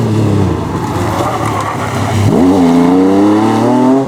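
MG Metro 6R4 Group B rally car's V6 engine driven hard: the revs fall away at first, then about two seconds in they jump and climb steadily under throttle, and drop sharply near the end at a gear change.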